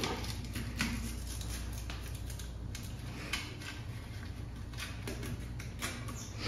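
A knife blade working into the flesh of a large bluefin tuna behind its head, heard as faint irregular clicks and scrapes over a low steady hum.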